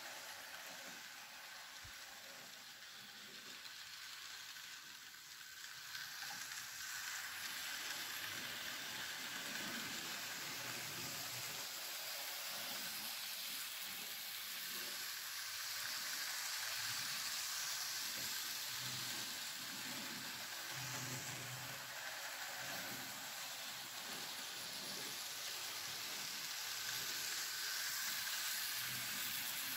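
Tomix N scale model trains running on the layout: a steady whirring hiss from their small motors and wheels on the track, growing louder about six seconds in.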